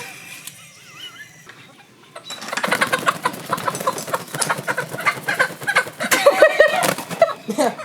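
Several chickens clucking. The calls are faint at first, then loud and busy from about two seconds in, with many calls overlapping.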